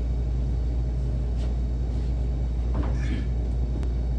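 Steady low rumble of café room noise, with a brief voice about three seconds in and a single sharp click near the end.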